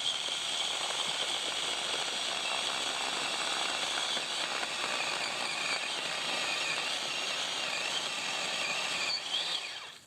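Ryobi 18-volt cordless chainsaw running and cutting into a wooden stump: a steady high whine with chain rasp, the pitch sagging as the chain bites under load and rising again, then it stops just before the end.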